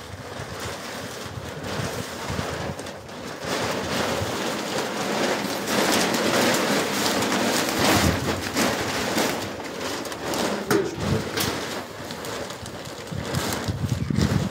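Large clear plastic sheet crinkling and rustling in irregular crackles as it is gathered up by hand.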